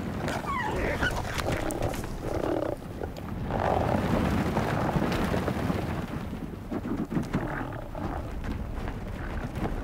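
Arctic wolves and musk oxen growling and calling in a scuffle over a musk ox calf, with a short falling whine near the start, over low rumbling from the charging herd.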